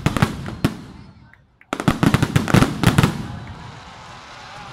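Aerial fireworks going off in quick succession. A volley of bangs and crackles at the start fades out, then from about two seconds in comes a dense run of sharp cracks and pops that tails off near the end.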